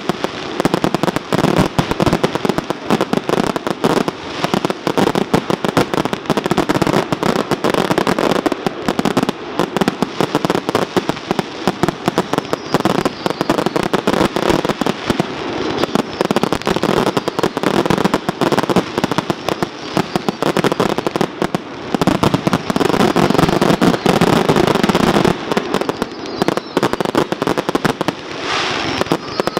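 Fireworks barrage: a dense, continuous run of cracks, pops and bangs from aerial bursts and crackling effects going off one after another without a break.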